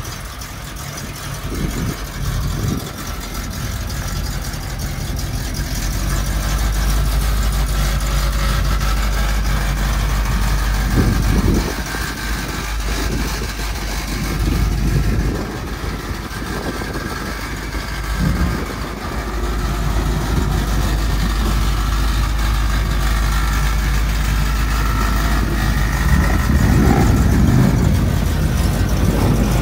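1971 Chevrolet C50 dump truck's engine idling steadily, with a few brief louder low rumbles coming and going.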